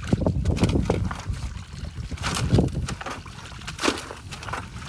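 Wet mud and water sloshing and squelching in irregular splashes as a small step-through motorbike is dragged by its rear rack through a muddy puddle.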